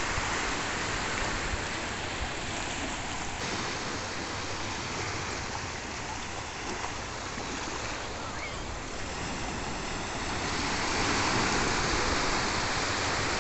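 Small waves breaking and washing up a sandy beach: a steady surf hiss that swells a little near the end.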